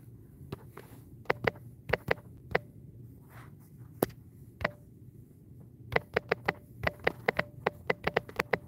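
Taps while typing on a smartphone's on-screen keyboard: a few scattered taps, then from about six seconds in a quick run of about four or five a second.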